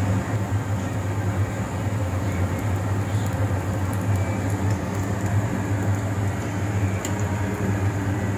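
Potato snack pieces deep-frying in a kadai of hot oil, sizzling steadily under a loud, steady low mechanical hum. A few faint clicks of a metal slotted spoon against the pan.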